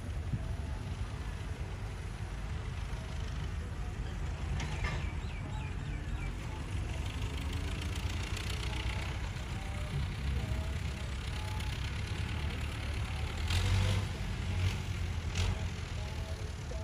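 Farm tractor engine running steadily while pulling a disc plough through the soil, a low even rumble, with a few short knocks near the end.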